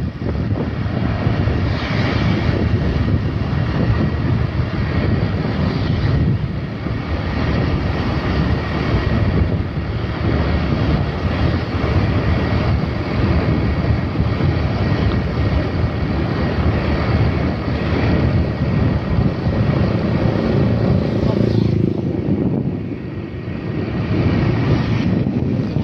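Steady rumble of vehicle engines and road noise from passing traffic, mixed with wind buffeting the microphone; it eases briefly near the end.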